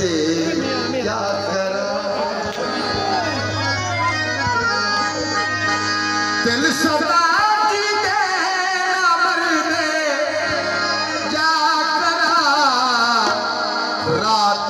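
Live Punjabi folk music played over loudspeakers: a man singing a wavering, ornamented melody over hand drums and instrumental accompaniment.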